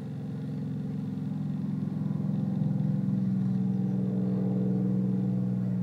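Supermarine Spitfire's V12 piston engine running as the plane flies past overhead, a steady low engine note that grows louder over the first couple of seconds and then holds.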